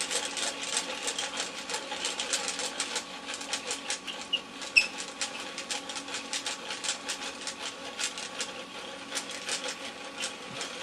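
Hand-cranked Skip Doctor CD repair device being turned, its mechanism clicking in a fast, continuous run as the abrasive wheel sands the disc.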